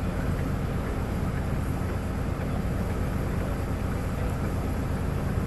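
Resort boat's engine idling at the dock, a steady low drone.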